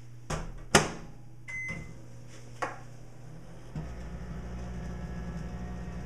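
Microwave oven door shut with two sharp clicks, the second the loudest, then a short keypad beep and another click; about four seconds in, the oven starts and runs with a steady low hum.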